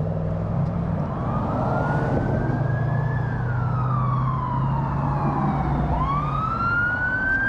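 Emergency vehicle siren sounding a slow wail: it rises for about two seconds, falls more slowly, then rises again near the end. Underneath is a steady low rumble that stops about a second before the end.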